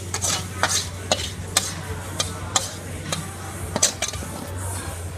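Metal ladle and spatula scraping and clanking against a steel wok as cooked pad thai is scraped out onto a plate, in sharp strikes at uneven spacing. A steady low hum runs underneath.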